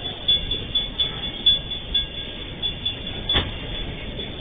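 Freight train wagons rolling past, their wheels knocking irregularly over the rail joints, with one sharp clank a little over three seconds in.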